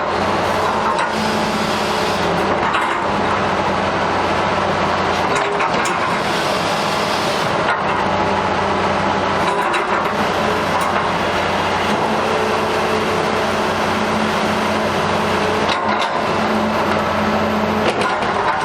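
Sumitomo S280FA hydraulic excavator's diesel engine running steadily, its pitch shifting a little now and then, with a few brief knocks.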